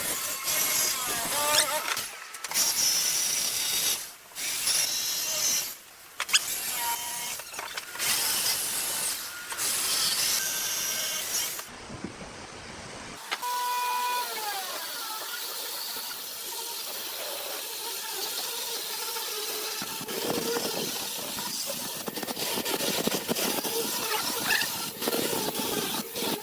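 Workshop tools and machinery working wood, heard in short clips cut one after another. About halfway through, a machine's whine falls in pitch.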